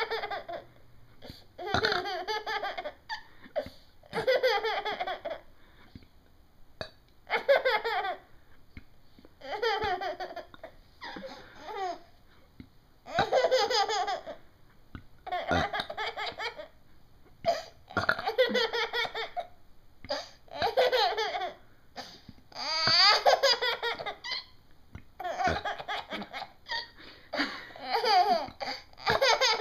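Baby laughing in repeated high-pitched fits, a new fit every second or two, many of them sliding down in pitch.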